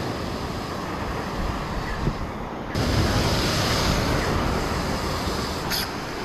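Ocean surf breaking and washing over jetty rocks below, with wind buffeting the microphone; the rush grows louder about two and a half seconds in.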